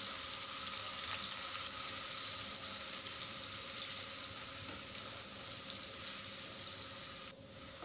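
Ground onion paste sizzling steadily in hot mustard oil in a kadhai as it is stirred with a wooden spatula. The sizzle breaks off suddenly for a moment near the end.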